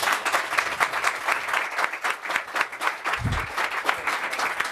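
Audience applauding, many hands clapping at once, with one brief low thump about three seconds in.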